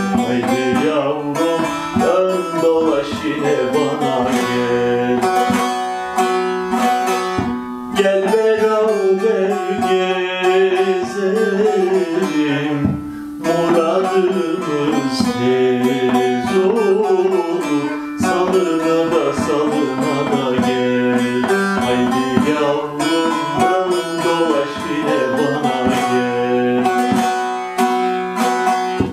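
Bağlama (long-necked Turkish saz) played with a plectrum: a fast plucked folk melody in the limping 9/8 rhythm counted 2+2+2+3, with brief breaks between phrases.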